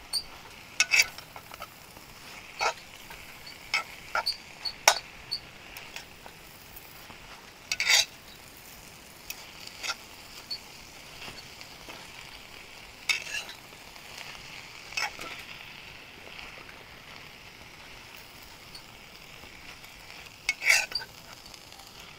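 Leafy greens being stirred and mixed in a frying pan, with a faint steady sizzle underneath. A cooking utensil scrapes and knocks against the pan at irregular intervals, every second or few.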